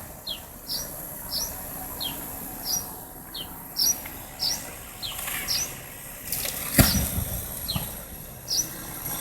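A bird calling over and over with short, high, downward-sliding chirps, about two a second, with a brief pause in the second half. A single sharp knock sounds about two-thirds of the way through.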